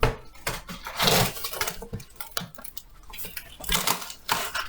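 Cardboard shipping box and its packing being handled and pulled open by hand: a series of irregular rustles, rips and knocks.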